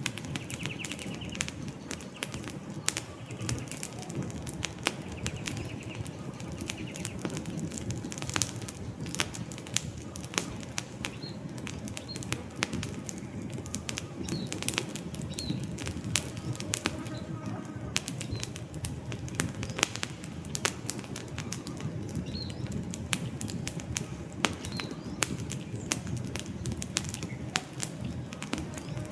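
Wood campfire crackling and popping irregularly over the steady low rush of the flames.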